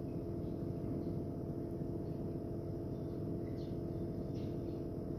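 Steady low machine hum with a few faint soft ticks in the last couple of seconds.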